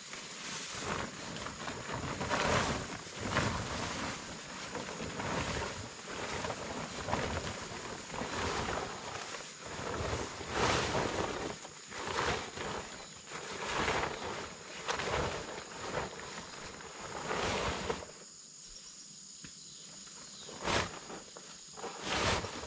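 Large plastic tarp crinkling and rustling in repeated bursts as it is hauled and heaved over a frame, over a steady high insect drone. Near the end the handling falls quiet but for a couple of short rustles, leaving mostly the insects.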